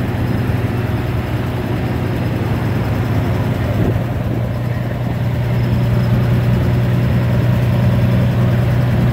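The 1937 Dodge fire truck's original flathead six-cylinder engine idling steadily and evenly. It is running smoothly, in good health, "like a Swiss watch."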